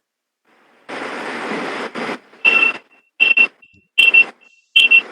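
A short burst of hiss, then a high electronic beep repeating about every 0.8 s, each beep coming with a burst of noise.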